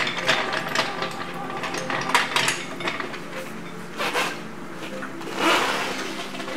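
Irregular metallic clinks and clanks from a hydraulic floor jack and jack stands being worked to lower the car. There is a short rushing noise about five and a half seconds in.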